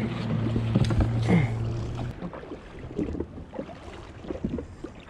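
Sea water lapping around a jet ski on open water, with scattered knocks from fishing gear being handled. A steady low hum runs for the first two seconds and then stops abruptly.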